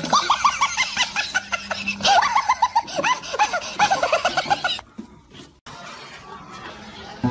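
A person laughing hard in a rapid string of high-pitched 'ha-ha-ha' bursts. The laughter cuts off abruptly about five seconds in, leaving only faint background noise.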